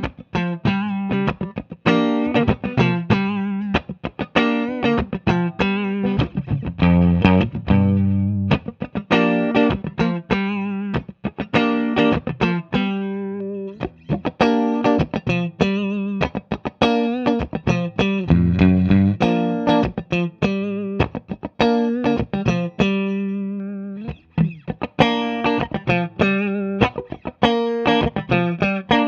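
Electric guitar, a Made-in-Mexico Fender Stratocaster fitted with Porter Vintage Custom single-coil pickups, played with a clean tone: a quick run of strummed chords and picked single-note phrases that ring out between attacks.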